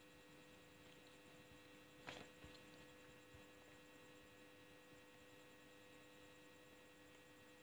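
Near silence with a steady electrical hum, and one faint brief click about two seconds in.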